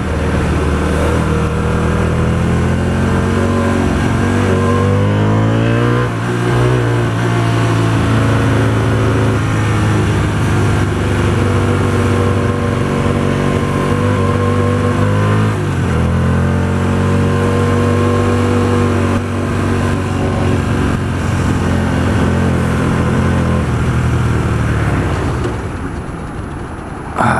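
Hyosung GT125R's 125 cc V-twin engine pulling under way, its note rising and then dropping at gear changes about six and sixteen seconds in. It holds a steady note after that and eases off near the end.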